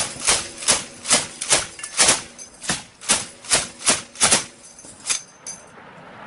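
Gunfire: a steady string of single shots, about two or three a second, stopping about five seconds in.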